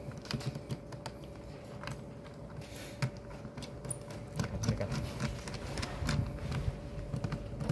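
Scattered small clicks and taps as a screwdriver and crimped cable lugs are handled at the terminals of a plastic circuit breaker, with a faint steady hum underneath.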